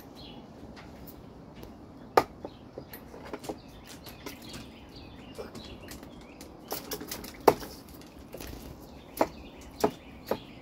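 A brush slapping and splashing the water in a plastic toy water table: irregular sharp taps and splashes, the loudest about two seconds in and near the middle, with a quicker cluster of small splashes just before it.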